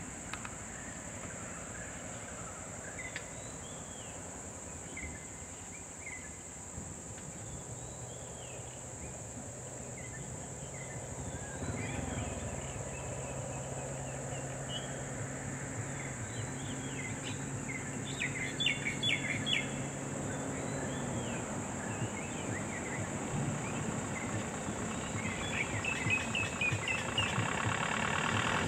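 Birds chirping over a steady, high insect drone. A low engine hum comes in about a quarter of the way through, and near the end vehicle engines grow louder as cars pull up and idle close by.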